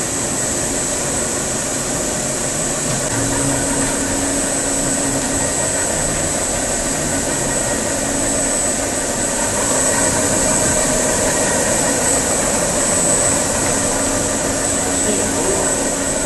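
Separator film slitting machine running: a steady mechanical noise with a constant high whine and a lower hum that comes and goes.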